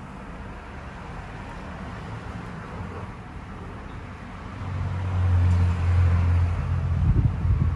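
A low engine rumble, like a vehicle, swells up about halfway through and holds for about three seconds, with wind buffeting the microphone near the end.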